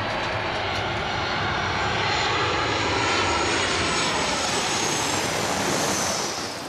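Airplane engine noise: a steady loud rush with a high whine that falls in pitch near the end, as of an aircraft passing.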